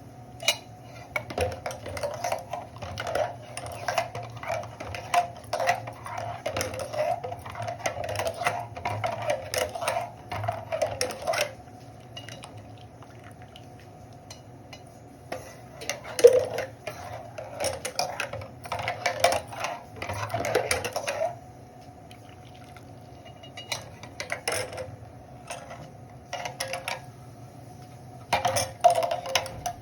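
A metal spoon scraping and clattering against a cooking pan in long runs of stirring, with pauses between, over a steady hum.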